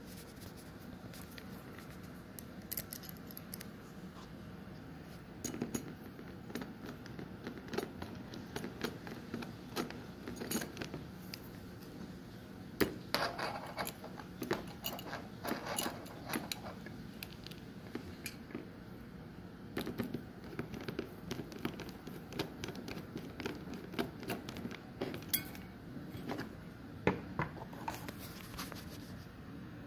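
Irregular clicks, taps and scrapes of small metal and plastic parts being handled while a hard drive is fitted back into a DVR box.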